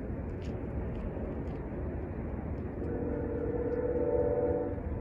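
A distant locomotive air horn sounds one long chord of several tones, held about two seconds from near the middle, over a steady low rumble.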